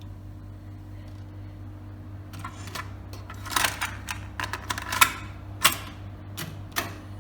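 A string of sharp mechanical clicks and clacks from a cassette deck's controls and cassette being handled, over a steady low mains hum.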